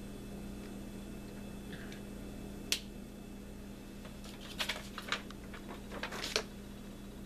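A paper poster held by a magnet is taken down from a whiteboard: one sharp click, then a quick cluster of clicks and paper rustles a couple of seconds later, over a steady low hum.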